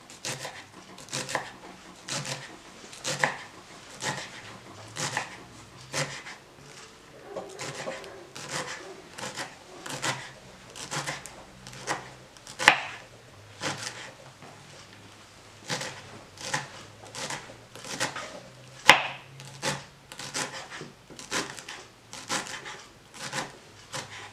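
Kitchen knife chopping cilantro finely on a wooden cutting board: a steady run of short knife strikes against the wood, about two a second, with two louder knocks about halfway and about three-quarters of the way through.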